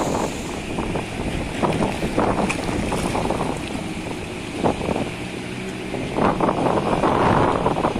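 Small fishing boat's engine running at sea, with strong wind buffeting the microphone in gusts that are loudest near the start and the end.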